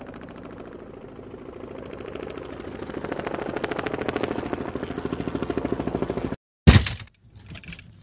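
Medical helicopter's rotor blades chopping in a fast, even beat, growing louder as it approaches, then cutting off abruptly. A loud clank follows, then smaller knocks and rattles, as a gurney is loaded into an ambulance.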